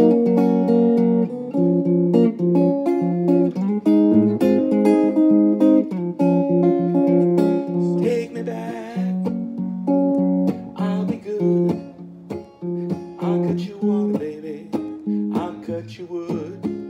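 Electric guitar playing a slow picked melody of single notes and chords, with a few bent notes.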